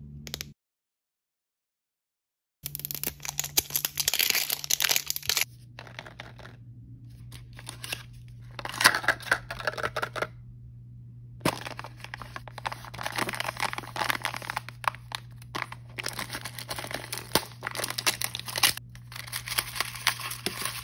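Crinkly wrappers of L.O.L. Surprise blind packages being torn and crumpled open by hand, in irregular bursts of crackling with a short pause about ten seconds in. A steady low hum sits underneath.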